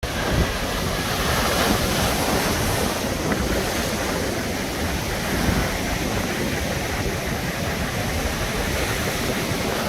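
Sea waves washing onto the shore, a steady rushing of surf, with wind buffeting the microphone.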